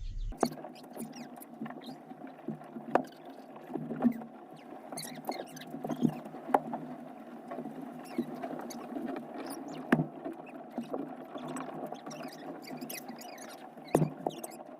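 Chickens clucking and chirping together in a coop, a busy steady chatter of small squeaky calls, with a few sharp knocks scattered through it.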